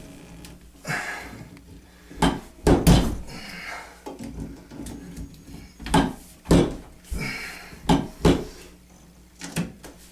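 Irregular sharp knocks and clanks, with scraping in between, from channel-lock pliers working a stuck faucet piston loose from the valve body.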